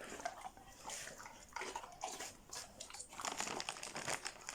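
A dog chewing a treat, with small irregular crunches.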